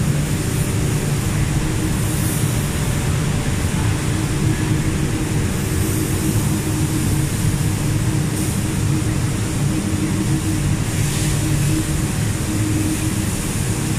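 Steady drone of woodworking-factory machinery: a constant low hum with several steady tones, and a few brief hisses now and then.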